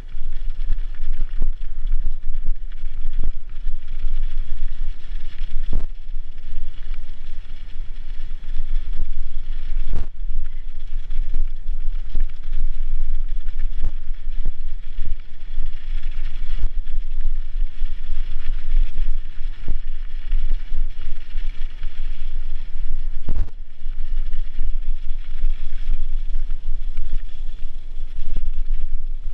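Bicycle riding fast down a snowy dirt trail: a steady low rumble of tyres and rough ground with rattling from the bike, and a few sharper knocks from bumps, one about 6 s in, one about 10 s in and one near 23 s.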